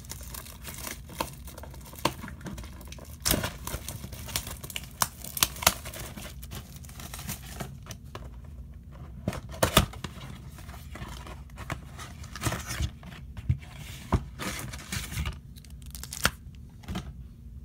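Packaging of a Bowman Mega Box of baseball cards being torn and crinkled open by hand, with irregular sharp crackles and rustles, as the card packs are taken out.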